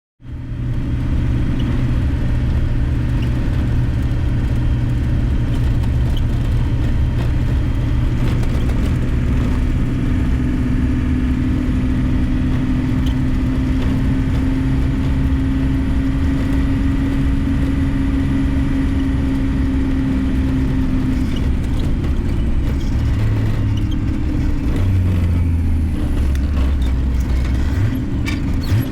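Farm harvest machinery engine running steadily with a low hum and whir; the low engine tones shift a few times near the end.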